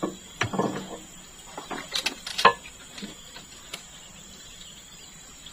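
A few scattered short clicks and knocks, the loudest about two and a half seconds in, over a faint steady high tone.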